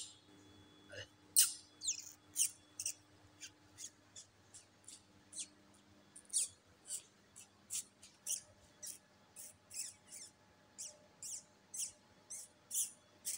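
Rock pigeon pecking at scattered grain on a concrete floor: a string of light, sharp clicks, about two to three a second.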